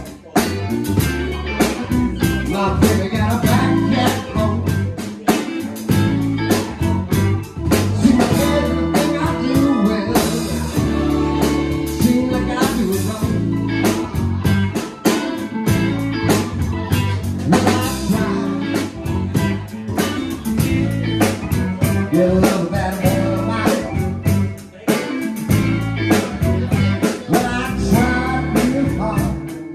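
Live funky electric blues: a band with electric lead guitar through a Marshall amplifier, bass guitar and drum kit playing steadily.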